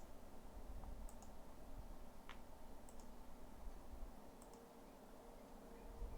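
A few faint, sharp clicks, spaced a second or so apart, over a low steady hum.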